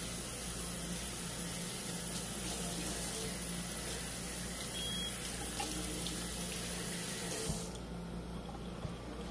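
Kitchen faucet running water onto a dish towel in a stainless steel sink, turned off about three-quarters of the way through.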